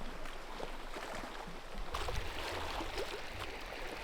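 Wind buffeting the microphone, a low rumble that comes on about two seconds in, over a steady rush of lake water.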